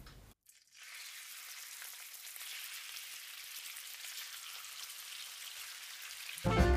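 Pieces of raw pork sizzling in hot oil in a nonstick wok as they are laid in by hand: a steady frying hiss with faint crackles that starts under a second in. Music comes in loudly near the end.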